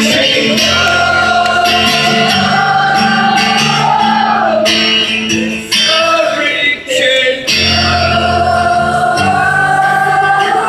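Live rock concert music: the band playing under long, drawn-out wordless sung notes, with a choir-like sound of many voices singing together.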